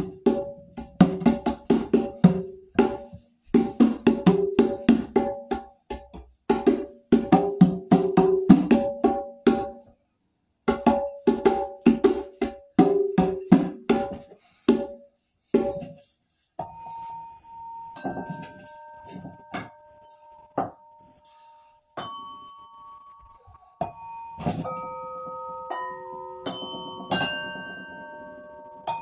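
Pitched percussion: bells struck in a quick, uneven rhythm with short notes for about the first half, then struck singly and left ringing, so several clear tones hang on and overlap.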